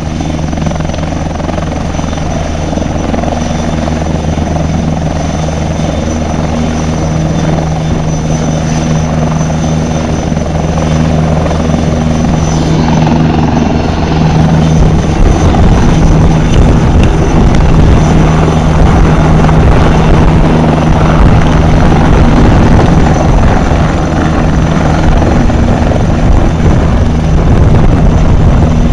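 Australian Army ARH Tiger helicopters running on the ground with rotors turning: a steady low drone from the rotors and twin turboshaft engines, with a thin high turbine whine. It grows louder about halfway through.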